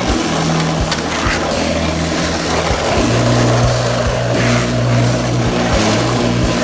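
Skateboard wheels rolling over rough tarmac with a few knocks from the board, under low held bass notes of music that change pitch about three seconds in.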